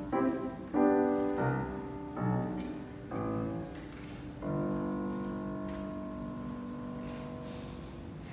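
Fazioli grand piano playing the last bars of a classical solo piece: a string of short chords, then a final chord about four and a half seconds in, held and slowly dying away.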